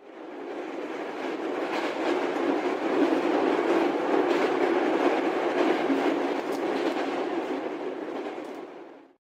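Train sound effect: a train running on rails with scattered wheel clacks, swelling to its loudest midway and fading out near the end.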